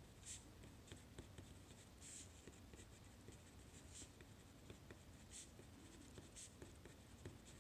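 Marker writing on a paper worksheet: faint, short scratching strokes at an uneven pace, a handful a little more distinct than the rest.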